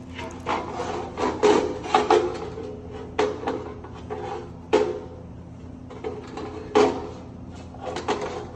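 Irregular knocks and clatter of hard parts being handled and set down, some with a short metallic ring, over a steady low hum.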